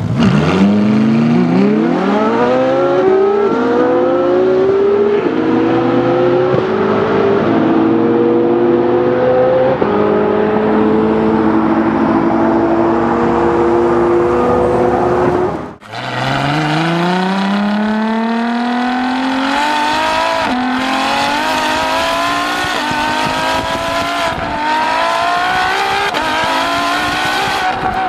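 A Ferrari LaFerrari's V12 and a Ferrari 458 Speciale's V8 launching together from a standing start and accelerating flat out, their engines rising in pitch through a run of quick upshifts. After a cut about 16 seconds in, another full-throttle launch follows, the engine note climbing again through several upshifts.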